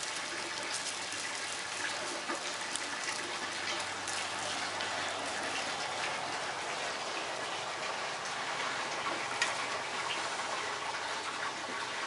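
Steady rushing hiss like running water, with a few faint light clicks and crinkles from the cat pawing at a foil-ribbon wand toy.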